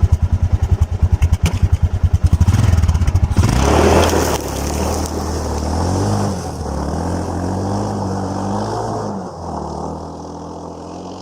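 Yamaha XT660Z Ténéré's single-cylinder engine running with an even thumping beat, then revving up about three and a half seconds in. Its note then rises and falls as the bike rides off, settling lower and quieter near the end.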